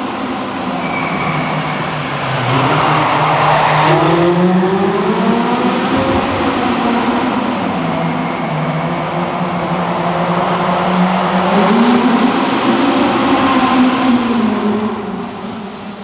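Rally car engine revving hard as the car drives around a tight indoor course. Its pitch climbs, drops and climbs again as the driver accelerates and lifts.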